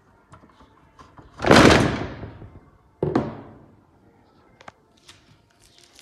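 Knocks and clicks of a Beko washing machine door's plastic frame and glass bowl being handled and worked with a screwdriver: one loud thunk about a second and a half in, a sharper knock a second or so later, then a few light clicks.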